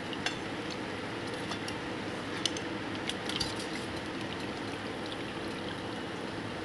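Hot oil sizzling and bubbling steadily in a kadai as fried onion kachoris are lifted out, with a few light metal clinks of a wire skimmer against the pan.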